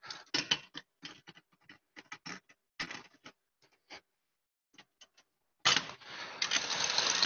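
Clinks and knocks of a stand mixer's bowl and attachment being handled and fitted. Near the end the stand mixer is switched on and runs steadily.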